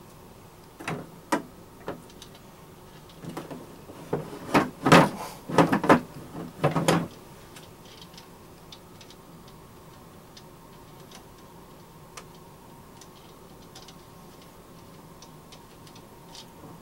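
Knocks and clunks of a kayak pedal drive unit and its parts being handled and packed into its case. A few separate knocks come about a second in, then a quicker run of heavier clunks for a few seconds, after which only faint ticks remain.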